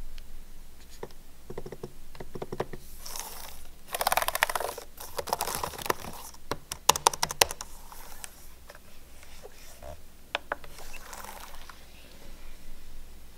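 Fingers typing quickly on a Dell Precision 3480 laptop keyboard: bursts of key clicks, densest and loudest from about four seconds in, thinning out toward the end.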